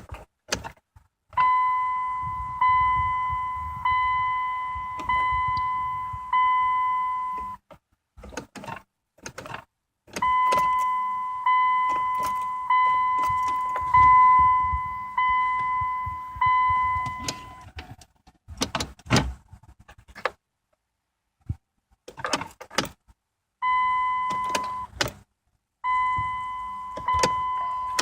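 Dodge Journey's dashboard warning chime dinging again and again, about one ding a little over a second apart, in runs that stop and start again. Sharp clicks from the ignition key and switch come between the runs.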